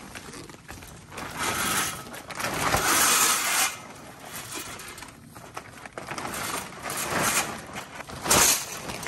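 Clinking and scraping of kitchen utensils and dishes, coming in a few separate bursts, the longest lasting about two seconds.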